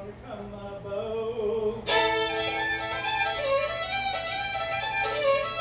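Fiddle playing an old-time tune as an instrumental break. A single wavering melody line, then about two seconds in it gets louder and fuller, bowed with a held lower note sounding under the melody.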